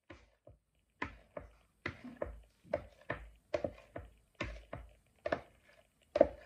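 A spatula repeatedly scraping and knocking against a plastic container to get thick tamarind pulp out into a blender jar: a steady run of sharp taps, about two a second.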